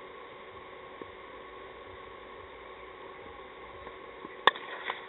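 Cricket bat striking the ball: one sharp crack about four and a half seconds in, with a couple of smaller knocks just after, over a steady background hiss and faint hum.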